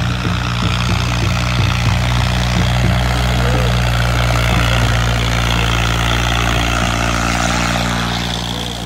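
Massey Ferguson 240's three-cylinder diesel engine running hard under load as the tractor drags a disc harrow through soil, a steady low drone that eases off near the end.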